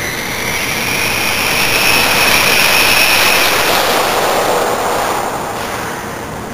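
Electric RC truck, a Team Associated RC10T2 with a brushless motor, making a full-throttle speed pass. Its high-pitched motor and gear whine rises as it approaches, is loudest about two to three seconds in, then drops in pitch and fades as it goes by.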